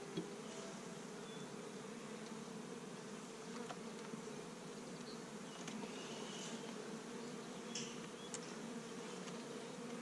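Carniolan honeybee colony buzzing steadily as a faint, even drone over an opened hive. A few light clicks come from the hive tool and hands on the wooden frames.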